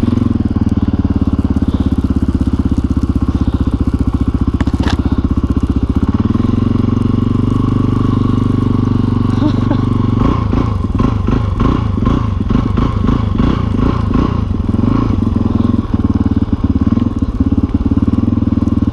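Thirty-year-old single-cylinder four-stroke dirt bike engine thumping along at low revs while riding through deep snow. Its note shifts about six seconds in and turns uneven, rising and falling from about ten seconds in.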